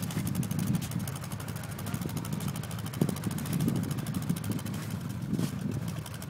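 Motor vehicle engine running steadily, a low rumble that swells and fades, with a rapid even pulse. One sharp knock about three seconds in.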